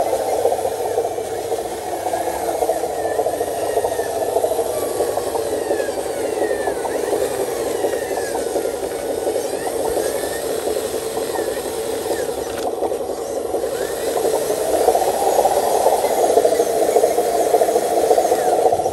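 Radio-controlled model truck's motor and drivetrain running steadily as it crawls over rough ground, a buzzing whir with a fine rattle, growing louder over the last few seconds.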